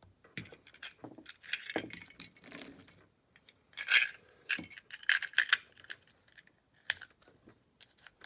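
Pistol cartridges clicking and clattering into a Glock 43 magazine, loaded from the bottom with a metal clip that holds the rounds. Irregular metallic clicks and rattles, loudest about four seconds in and again just after five seconds.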